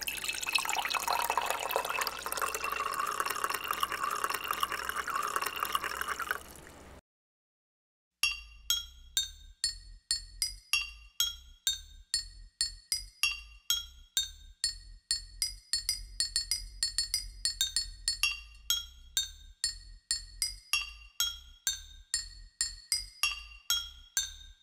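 Water poured into a glass jar for about seven seconds, its ringing tone rising slowly as the jar fills. After about a second of silence, a fast, steady run of pitched glass clinks begins: a repeating melodic pattern played from an Ableton Push pad controller.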